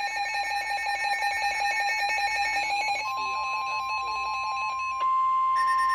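Several weather alert radios sounding their electronic alarm beeps at once, a fast pulsing tone over higher alternating beeps. About three seconds in, NOAA Weather Radio's steady single-pitch warning alarm tone comes on and holds, announcing a severe thunderstorm warning.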